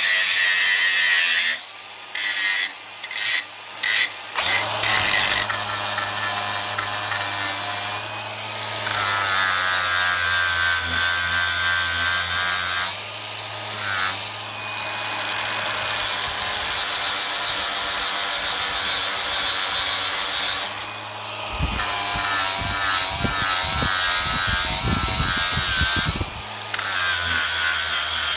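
Angle grinder with an abrasive disc grinding rust off a steel hatchet head: a steady high motor whine over the rasp of the disc on the metal, cutting out abruptly several times. A run of quick low knocks comes about three-quarters of the way through.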